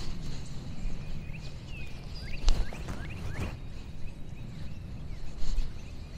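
Outdoor ambience of small birds chirping in short rising notes over a steady low rumble, with two sharp clicks near the middle.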